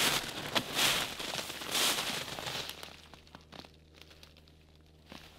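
Footsteps in fresh snow, boots crunching and brushing through dry twigs and brush. There are about four steps in the first three seconds, then it goes quieter with a few faint ticks.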